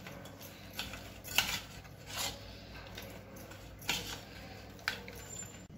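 Hands mixing marinated mutton chops and spice paste in a steel bowl: soft squelching of meat and paste with about half a dozen light clinks against the metal.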